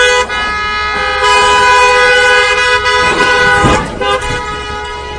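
Car horn held down, sounding one steady two-note tone that fades somewhat after about four seconds, with a brief low thump around three and a half seconds in.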